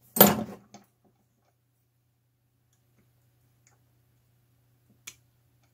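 A sharp click just after the start and a softer tick right after it, then near quiet with a faint low hum and one small tick near the end: a metal hand tool clicking against the circuit board of a cable-TV tap.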